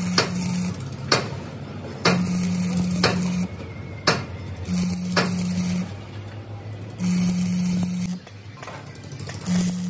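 Stick arc welding on broken gear teeth, building them up with weld: the arc crackles and hisses in about five bursts of roughly a second each, with a steady low hum while it burns. Sharp cracks come between the bursts.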